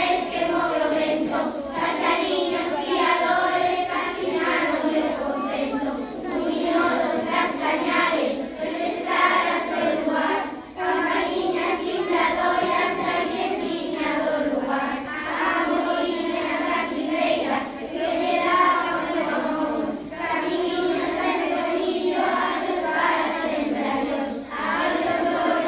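A large group of children singing a song together, line after line, with brief pauses between phrases.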